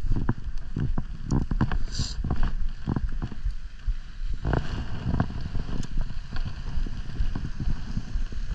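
Wind buffeting the microphone with a steady low rumble, broken by many irregular knocks and thumps of handling.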